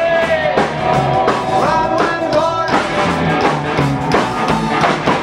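Live rockabilly band playing: a man singing over electric guitar, bass and drums with a steady, driving beat.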